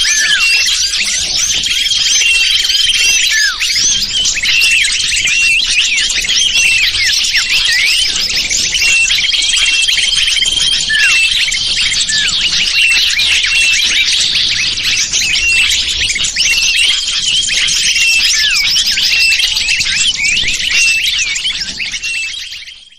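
Bird-lure recording of many small birds chirping and twittering over one another, high and dense, with a steady high note held for a second or two several times. It fades out near the end.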